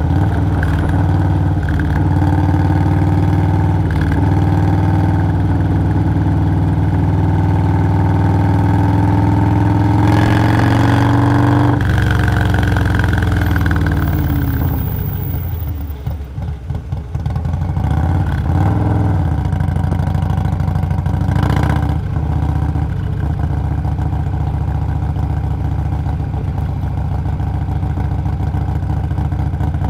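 Harley-Davidson Low Rider S's Stage 2 Milwaukee-Eight 117 V-twin cruising steadily. It builds a little about ten seconds in, then rolls off the throttle and slows, running low and uneven for a couple of seconds before picking up and cruising again.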